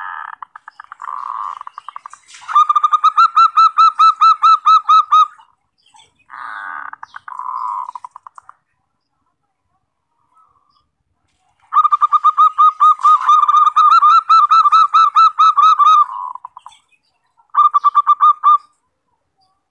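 Zebra dove (perkutut) singing. Buzzy opening notes are followed by fast strings of clear staccato coos, about five a second, in several phrases, with a silent gap of about three seconds midway.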